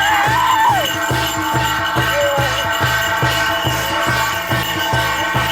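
Korean shamanic ritual music: a drum beaten steadily about three times a second, with bells jingling and metal ringing over it.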